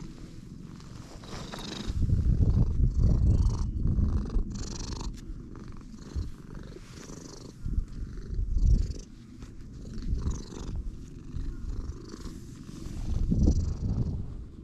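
Ginger-and-white stray cat purring as it is stroked, a low rumble that grows louder several times.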